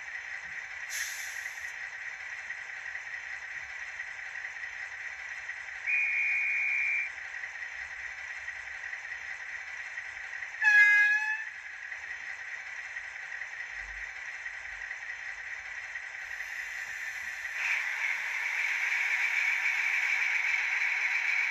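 Sound decoder of a Fleischmann N-gauge DR class 112 (V100) diesel model running its engine idle sound through the small onboard speaker, with a brief hiss of air about a second in, a short high whistle about six seconds in, and a loud horn blast near eleven seconds. Near eighteen seconds the engine sound revs up and stays louder as the locomotive pulls away.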